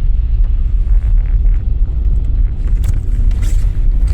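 Steady low rumble of a car heard from inside the cabin, with a few faint clicks or rustles about three seconds in.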